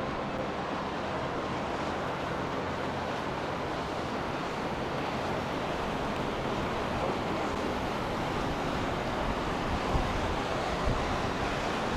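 Steady wash of wind and water over open water, with wind rumbling on the microphone and two brief low thumps near the end.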